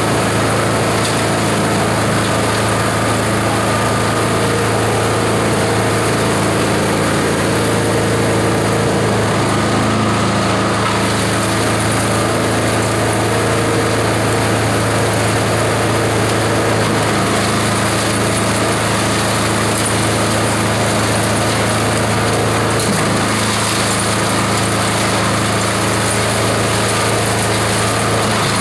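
Multi-purpose chopper/shredder machine running continuously while fibrous husks are fed through it: a loud, steady mechanical drone with a constant low hum.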